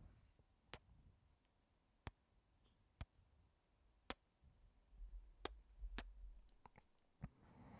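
Soft kisses close to the microphone: about seven short, sharp lip smacks, roughly one a second, with a low rumble of movement between them near the middle.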